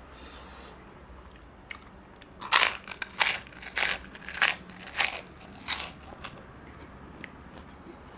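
A person chewing crunchy food: six loud crunches, about two every second, starting about two and a half seconds in.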